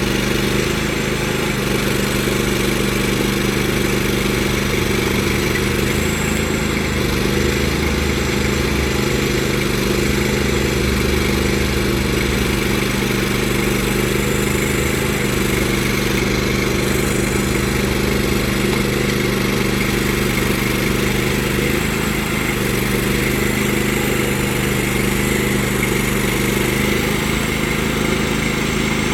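Small engine of a towable backhoe running steadily at a constant speed, with no revving or stalling.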